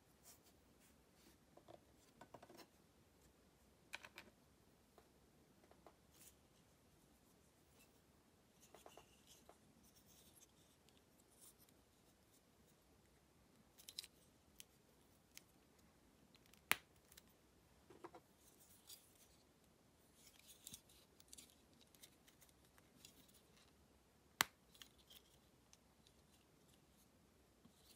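Hobby nippers snipping plastic model-kit parts from their runners: scattered sharp, faint clicks and snips a few seconds apart, two of them much sharper, with light plastic rustling and scratching between.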